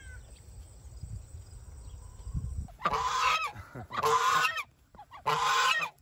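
White domestic goose honking three times, about a second apart, in the second half.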